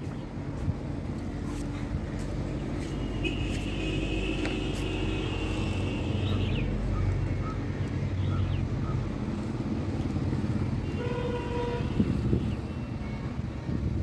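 Steady road-traffic rumble with vehicle horns sounding twice: a long one a few seconds in and a shorter one near the end.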